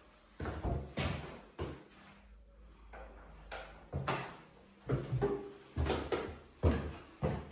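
A series of irregular knocks and clunks, about a dozen over several seconds, like hard objects being handled or set down.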